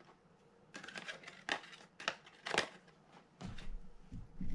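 Handling of fishing-reel parts on a workbench: a series of short sharp clicks and taps, then low dull bumps near the end as the line-filled spool is picked up.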